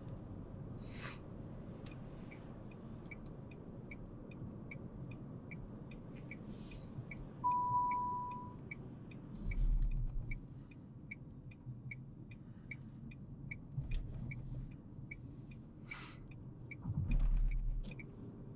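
Dacia Sandero Stepway's turn-signal indicator ticking steadily, about three ticks a second, over low engine and road noise in the cabin. A short beep sounds about a third of the way in, and two dull thumps come around the middle and near the end.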